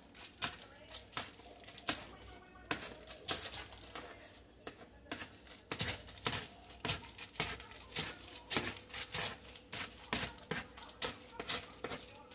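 Irregular light clicks and taps of kitchen handling, several a second.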